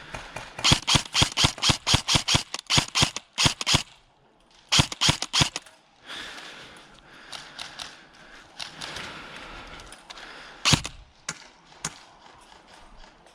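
Airsoft guns firing: a fast run of sharp shots for about three seconds, a second short burst around five seconds in, then scattered single shots with a louder one near the end.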